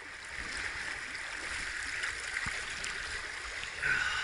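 A river's current rushing steadily, with a brief, louder, higher-pitched sound near the end.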